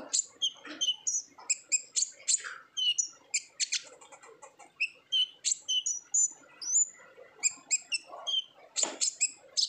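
Kolibri ninja sunbird singing a rapid, busy song of short high chirps and twitters, one after another with no pause.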